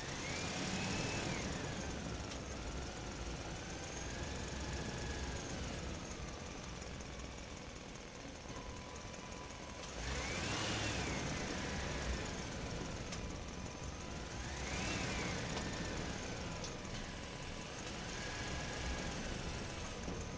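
Engine-like sound revving up and dropping back in pitch three times: near the start, about ten seconds in and about fifteen seconds in, over a steady low rumble. A faint steady high tone joins from about eight seconds in.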